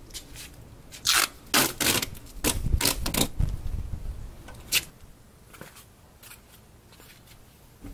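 Masking tape being pulled off the roll and pressed onto a plastic fender flare to mark a cut line: a run of short ripping and scraping noises, bunched between about one and three and a half seconds in, with one more near five seconds.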